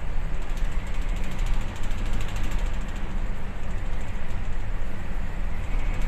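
Steady low rumble on board a bulk carrier under way in a rough sea, with a fast, even rattle of ship fittings over it.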